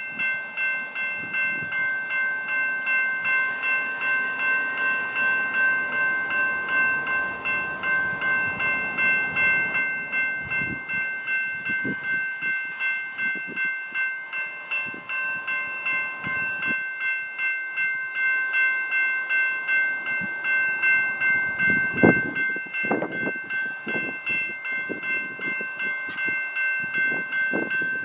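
Railroad grade-crossing warning bell ringing steadily, about two strokes a second, as the crossing signals activate and the gates come down for an approaching train. A few dull low thumps come in the last few seconds.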